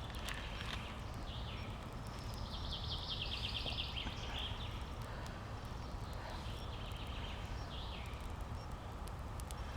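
Forest ambience with a steady low background and a bird giving a rapid high trill about two seconds in, lasting about two seconds, with a few fainter calls later.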